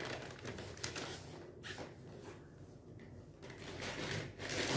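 Plastic bags rustling and crinkling as packaged items are handled and packed away, louder near the end.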